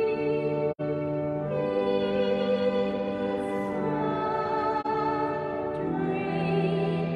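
Sacred music: sustained organ-like chords under a singer holding long notes with vibrato, the bass note changing every second or two. The sound cuts out for an instant under a second in.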